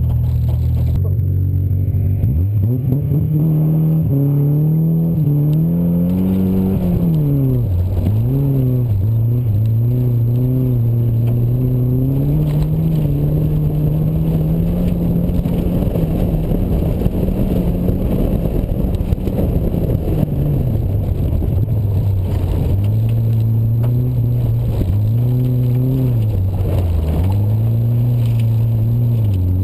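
Ford Festiva's small four-cylinder engine pulling hard on a rallycross run. Its pitch climbs, then drops and recovers several times as the driver lifts and shifts, over a steady rush of tyres on loose dirt.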